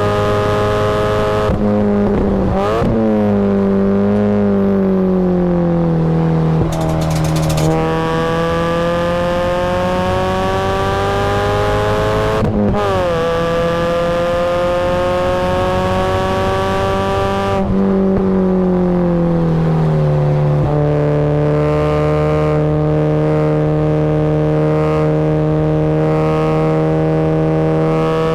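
Supercharged Mazda Miata's four-cylinder engine pulling hard on track. The revs climb steadily through the gears with a sharp upshift drop about twelve seconds in. The revs fall away with downshifts near the start and again from about eighteen to twenty seconds.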